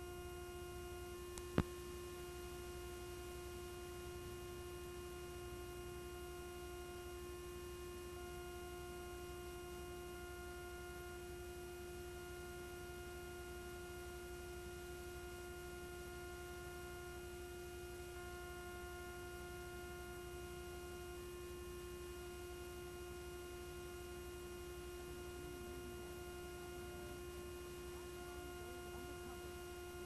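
Faint, steady electrical hum and buzz from the blank lead-in of a videotape playback, with one sharp click about a second and a half in.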